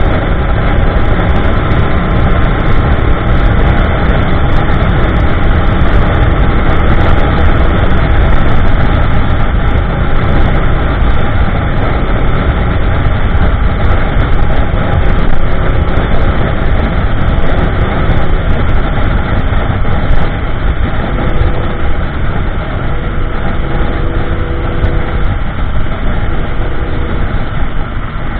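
2015 Yamaha YZF-R1M's crossplane inline-four running at steady cruising speed through an Akrapovic slip-on with MJS link pipe and factory headers, mixed with heavy wind rush and buffeting on the microphone.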